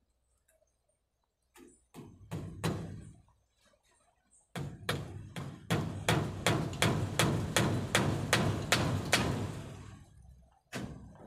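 Hammer blows on a wooden post: a few spaced strikes, then a quick steady run of about seventeen blows at three to four a second, and one last blow near the end.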